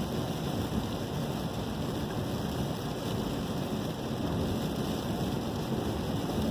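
Steady rushing noise of gusty wind and light rain ahead of a hurricane, with wind rumbling low on the microphone.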